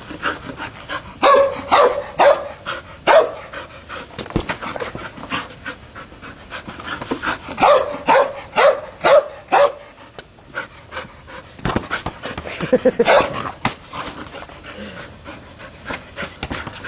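Entlebucher mountain dog panting hard and giving short barks while herding a basketball. The sounds come in three quick runs of several at a time.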